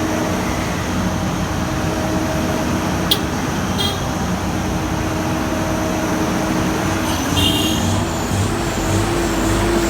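Heavy vehicle engine running steadily, its note rising about seven seconds in, with a sharp click about three seconds in.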